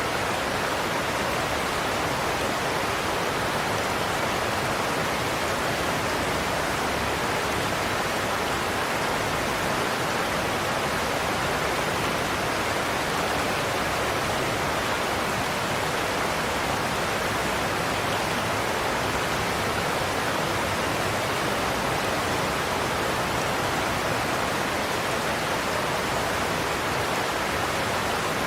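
Godafoss waterfall: a large glacial-river waterfall's steady rush of falling water, an even, unbroken roar.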